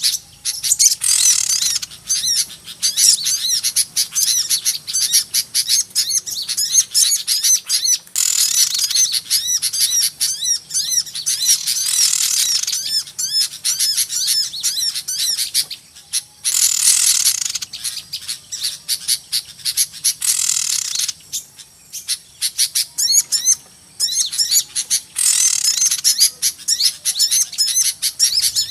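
Lure-call recording of a crowd of noisy small birds: a dense, fast chatter of high chirps and chips, with louder bursts of quick squeaky notes every few seconds.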